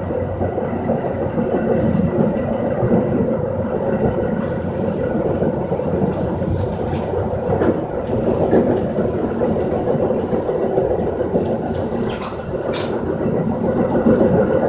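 Metra commuter train running along the rails, heard from inside the car's vestibule: a steady rumble of wheels on track with a humming band and a few sharp clicks from rail joints.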